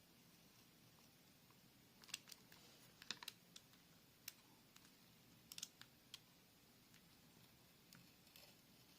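Faint, irregular little clicks and scrapes of a precision knife blade working over a plastic headphone headband strap, scraping off old tape adhesive; they come in short runs, starting about two seconds in.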